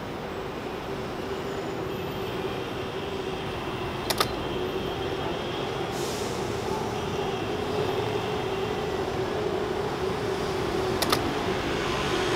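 Steady city traffic noise from a busy roundabout, with a constant hum under it and slowly getting louder. Two sharp clicks cut through it, about four and eleven seconds in.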